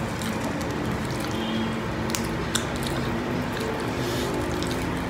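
Close-up eating sounds: wet chewing and squishing of rice and food eaten by hand, with a few sharp clicks about two seconds in. Soft background music runs underneath.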